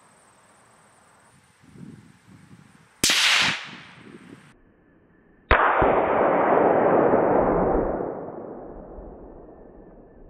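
Two rifle shots from a Savage 93 in .17 HMR: a sharp crack about three seconds in, then about two and a half seconds later a second report that echoes and fades away over a few seconds.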